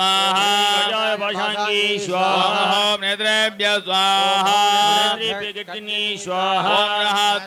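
Male priests chanting Sanskrit Shaiva mantras in a sing-song recitation, with long held notes and gliding pitch.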